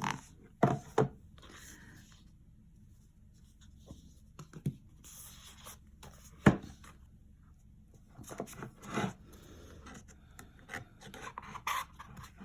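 Album packaging and paper inserts being handled by hand: rubbing and sliding of card and paper, with several sharp taps, the loudest about halfway through.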